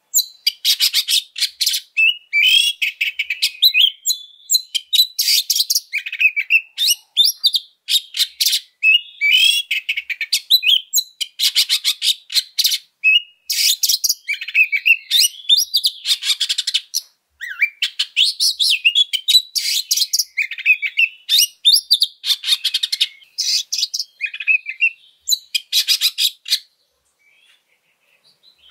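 Oriental magpie-robin singing its combative fighting song: loud, rapid phrases of varied whistles mixed with harsh rasping notes, with only brief gaps between them. It falls silent for a couple of seconds near the end.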